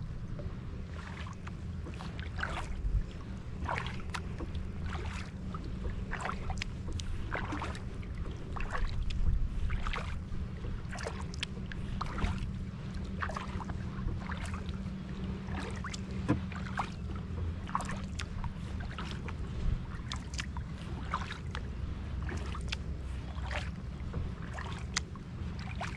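Kayak paddle strokes: the blades dip into the water with small splashes and drips, irregularly about once or twice a second, over a steady low rumble.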